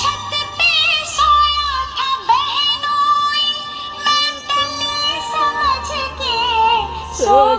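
A Hindi folk-style song plays loudly: a woman sings high, with a quivering, wavering pitch, over a steady low bass.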